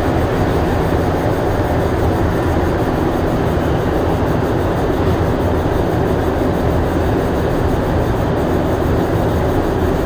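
Montreal Metro rubber-tyred train heard from inside a car: a steady, loud hum and hiss with no clear knocks or changes in pitch.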